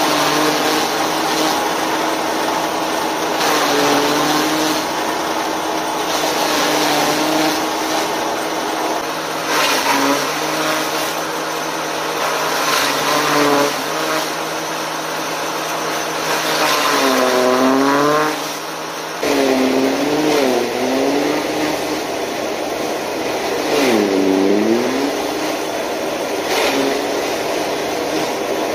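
Forage chopper (chaff cutter) running and shredding fresh green grass stalks: a steady machine hum over the rushing noise of cutting. The hum dips in pitch and recovers several times as bundles of stalks are fed in and load the machine.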